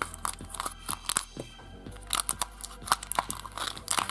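Crinkling, rustling and light clicks of a paper leaflet and small plastic packaging being pulled out and handled, over steady background music.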